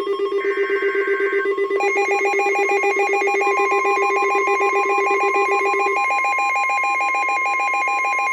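Weather radio alert tones: several electronic alarm tones beeping rapidly and overlapping, with a steady warning alarm tone joining about three and a half seconds in; the lowest beeping tone stops about six seconds in. These tones herald a NOAA Weather Radio tornado warning.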